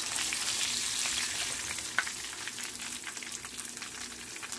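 Hot oil sizzling and crackling around a fish fillet in a frying pan as a spatula lifts the fillet out, with one sharp click about two seconds in.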